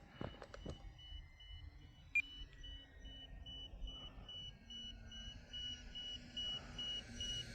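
Faint, high-pitched electronic beeping that repeats evenly, about three beeps a second. Under it is the faint whine of the RC plane's electric motors, which falls in pitch toward the end.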